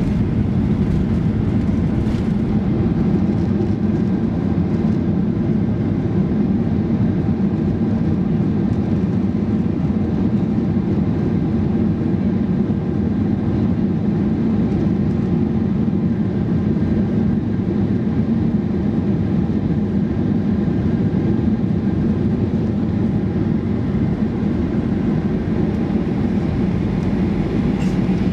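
Steady low rumble inside the cabin of a Boeing 737-800 rolling on the ground after landing, with its CFM56-7B26 engines running.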